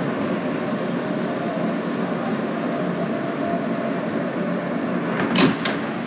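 New York City subway train running through a station with a steady rumble of wheels and motors, and a brief loud hiss about five seconds in.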